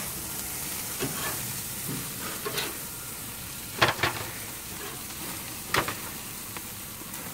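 Burgers and sausages sizzling over open flames on a barrel grill, a steady hiss, with a few short clinks of a metal spatula against the grate.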